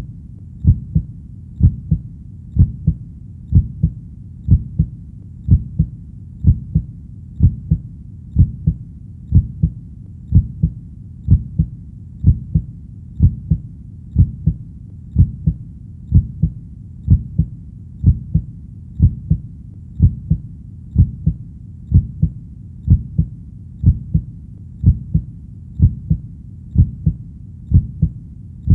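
Human heartbeat, a steady lub-dub of paired low thuds at about one beat a second, with no change in pace.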